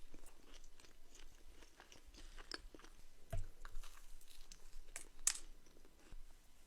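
Close-up chewing of crunchy food, with crisp crackling crunches and a couple of louder bites partway through.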